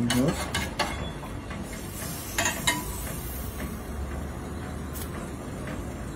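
A metal spoon stirring semolina porridge in an enamel saucepan, with a few light clicks of the spoon against the pot over a low steady hum.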